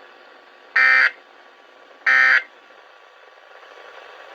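Weather-radio SAME end-of-message data bursts: two short, identical buzzy warbles about 1.3 s apart, each about a third of a second long, the signal that closes an alert broadcast. A faint radio hiss follows, growing slightly louder near the end.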